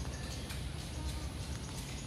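Faint background music over a steady outdoor noise with a low rumble.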